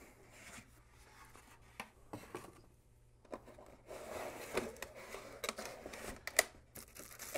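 Cardboard and molded pulp packaging being handled: soft rubbing and scraping with scattered light taps, quiet at first and busier from about four seconds in.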